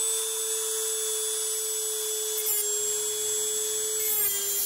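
Dremel rotary tool with a cut-off wheel whining at high speed, then grinding into a solid steel pedal spindle in the second half, sending off sparks. Its pitch dips slightly as the wheel loads up in the cut.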